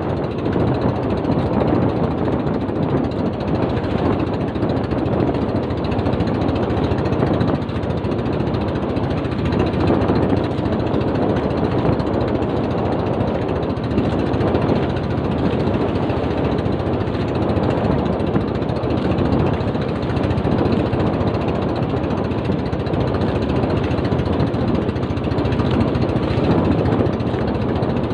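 Small fishing boat's engine running steadily with a fast, even chugging beat.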